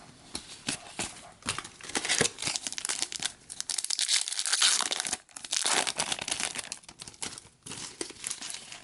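Wrapper of a hockey card pack being torn open and crinkled in the hands: an irregular run of crackles and rustles.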